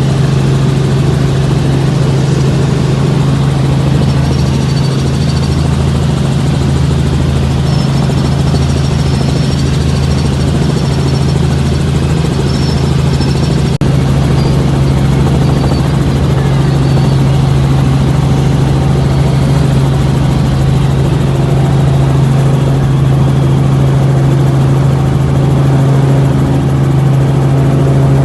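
Helicopter engine and rotor noise: a steady, loud drone with a strong low hum.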